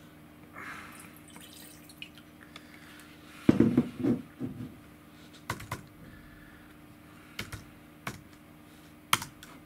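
Sparse keyboard clicks from typing, with a cluster of heavier knocks about three and a half seconds in.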